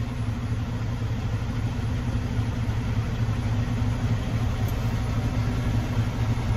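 Semi truck's diesel engine idling steadily, a low even hum.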